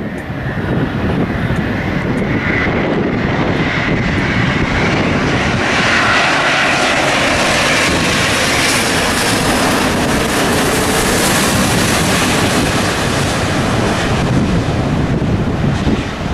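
Twin-engine wide-body jet airliner on final approach with landing gear down, its engine noise passing low overhead. A faint whine sits in the early part, the rushing sound is strongest around the middle, and it eases off as the plane moves away near the end.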